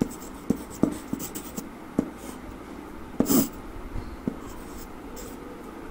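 Pencil writing on drawing paper: a run of short scratching strokes and light taps of the tip, the loudest stroke about three seconds in.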